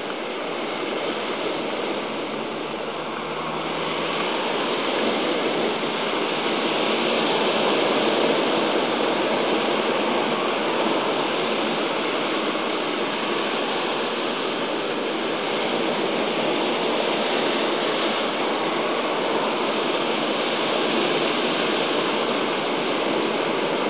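Sea surf breaking and foaming over rocks: a steady rushing wash that swells a little about four seconds in.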